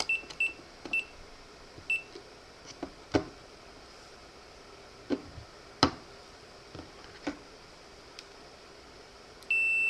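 Digital multimeter's continuity beeper chirping in four short high beeps in the first two seconds as the probes touch points on a circuit board, with scattered sharp clicks after. Near the end it starts one long steady beep, the meter signalling a short in the board's wiring.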